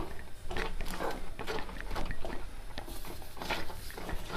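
A steel spoon scraping and knocking against a non-stick kadai in a repeated rhythm, about two or three strokes a second, as a thick coconut milk and sugar mixture is stirred while the sugar melts.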